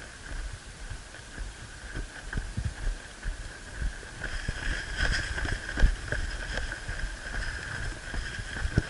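Irregular low thumps of footsteps and a jostled body-worn camera as a player walks uphill, over a steady high-pitched drone that grows louder about halfway through.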